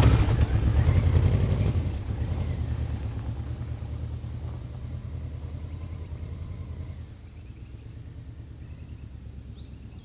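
A large touring motorcycle's engine pulls away, its low, pulsing exhaust note fading steadily as it rides off into the distance.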